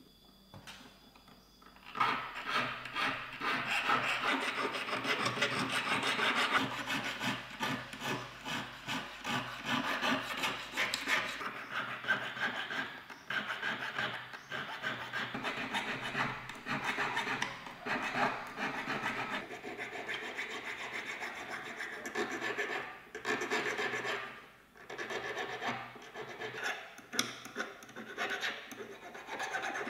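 A needle file rasping on a 12k white gold ring in quick, repeated strokes. It starts about two seconds in and breaks off briefly about three quarters of the way through.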